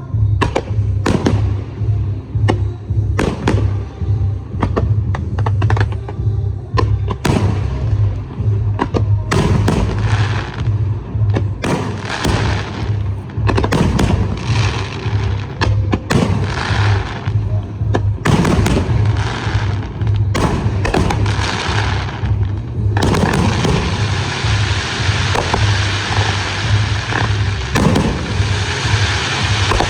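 Aerial fireworks going off in a run of sharp bangs, some following close on one another. About two-thirds of the way in they merge into a dense, continuous crackling barrage.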